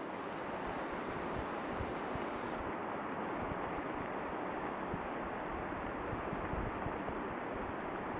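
Steady rush of running water from a small mountain stream springing out of a limestone cliff face.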